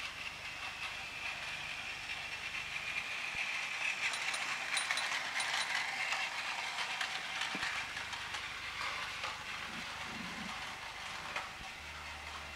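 Battery-powered Plarail toy train running on plastic track: its small motor and gearbox whirring with a rapid clicking of wheels and gears, growing louder in the middle and then fading a little.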